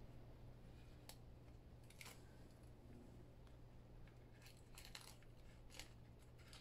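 Near silence over a low steady hum, with a few faint ticks and rustles of paper and tape backing being handled as the liner is picked off double-sided tape.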